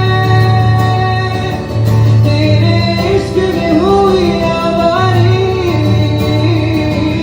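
Music: a song with a voice singing a wavering melody over guitar and a low, steady bass.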